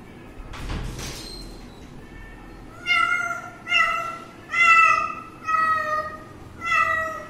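Cat meowing repeatedly: a run of five short, high meows a little under a second apart, starting about three seconds in, after a brief soft rustle about a second in.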